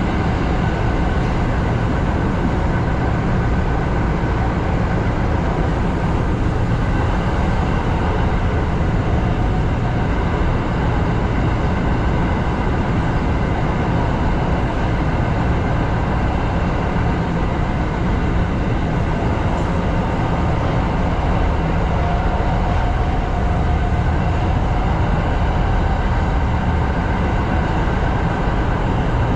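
Kintetsu 7000 series subway train running steadily through a tunnel, heard from inside the front car: an even, unbroken rumble of wheels and running gear with faint steady tones above it.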